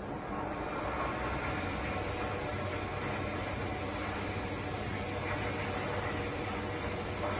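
Wire drawing machine running, its motors giving a steady hum with a high whine that sets in about half a second in.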